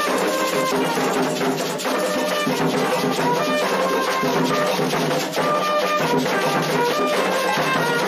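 A clarim (bugle) playing a melody of held notes over continuous drumming, the brass-led music for the orixás' entrance in a Candomblé ceremony.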